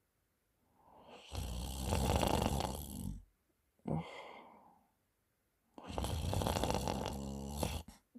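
A man snoring loudly in his sleep: two long, rough snores of about two seconds each, roughly four seconds apart, with a shorter, softer breath between them. The second snore ends in a fluttering rattle.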